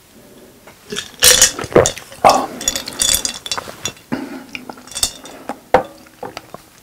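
Close-miked drinking sounds as the last of a drink is swallowed from a glass mason-jar mug, followed by glass clinks, with the jar knocked down onto the table just before the end.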